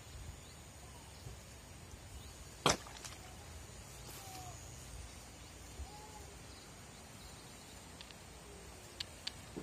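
Faint outdoor background with a low handling rumble as the camera is carried through grass. One sharp snap comes about two and a half seconds in, followed by a few faint short chirps and two small clicks near the end.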